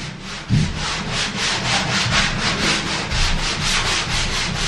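Hand sanding block scraping back and forth over a plastered ceiling in quick even strokes, about five a second.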